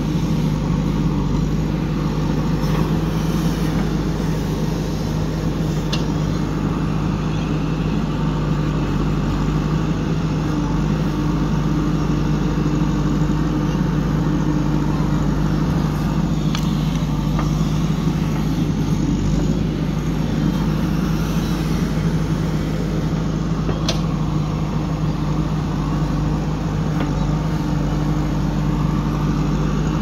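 JCB 3DX backhoe loader's diesel engine running steadily while the backhoe digs and loads soil, with a few brief sharp knocks scattered through.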